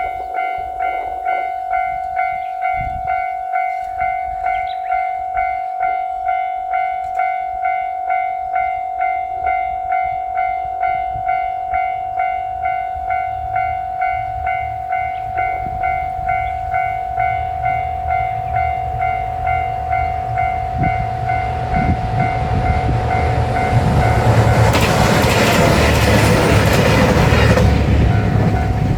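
Japanese level-crossing warning bell ringing steadily, about one and a half strikes a second. From about twenty seconds in, a JR Shikoku 2700 series diesel limited express approaches with a growing rumble. Over the last five seconds it passes loudly, engines and wheels drowning the bell.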